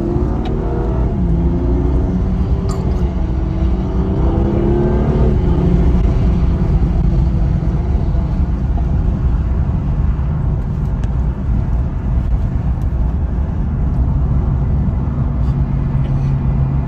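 Lamborghini Aventador SV Roadster's naturally aspirated V12 accelerating, heard from a following car's cabin. Its pitch rises for about the first five seconds, breaks once near the start as it shifts gear, then settles into a steady low drone with road noise.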